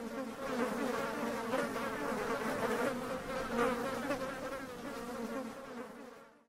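Buzzing of several flying insects, a steady drone with a wavering pitch that fades out near the end; a buzzing-gnat sound effect laid over an animated title.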